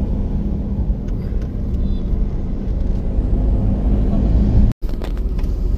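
Steady low rumble of a car driving, engine and road noise heard from inside the cabin. It cuts out for a moment near the end.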